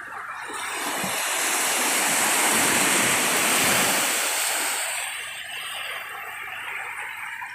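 Sea waves breaking on a beach: a wave's rush swells for a couple of seconds, then eases to a lower, steady wash.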